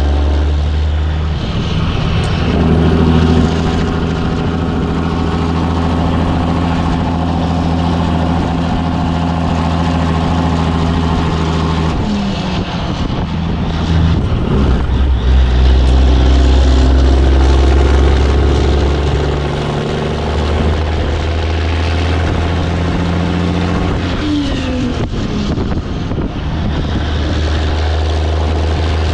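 Caterpillar 3406B diesel engine of a 1984 Peterbilt 362 cabover running under way with a steady drone. Its note changes pitch in steps several times, and it is loudest in the middle of the stretch.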